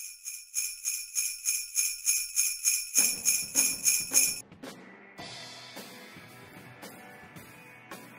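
Sleigh bells shaken in a steady rhythm, about three shakes a second, growing louder and stopping suddenly about four and a half seconds in. Soft instrumental music comes in under them about three seconds in and carries on quietly after the bells stop.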